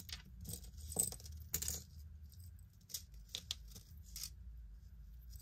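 Small metal jewelry, thin chains and earrings, clinking and jingling as it is picked through and untangled by hand. The clinks are light and irregular, with the sharpest about one and one-and-a-half seconds in.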